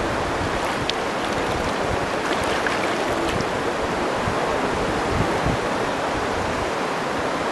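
Swollen river rushing over stones and rapids: a steady wash of flowing water.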